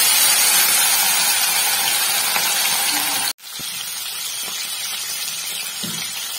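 Pieces of rohu fish frying in hot oil in a kadai: a loud, steady sizzle that eases slightly. About three seconds in it breaks off abruptly and picks up again, quieter.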